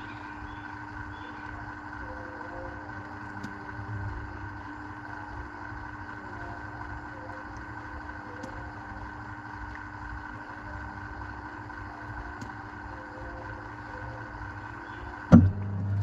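Washing machine heard from inside its drum: a steady mechanical hum with a few faint ticks, then one sharp click near the end.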